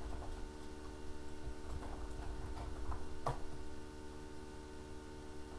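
Computer keyboard typing: a run of faint key clicks, then a louder keystroke about three seconds in.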